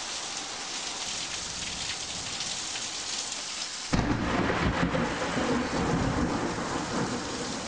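Steady rain, with a low rolling rumble of thunder breaking in about four seconds in and going on to near the end.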